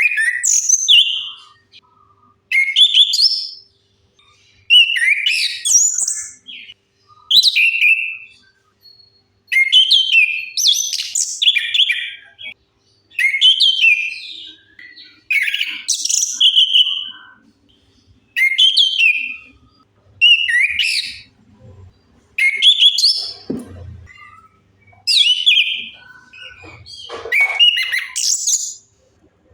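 Chestnut-capped thrush (anis kembang) song: a string of short, varied whistled phrases, a new phrase every two to three seconds. A few faint low knocks come in near the end.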